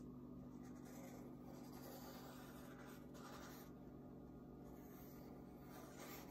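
Faint scratching of a wooden pencil on paper held on a clipboard, in short strokes with pauses between.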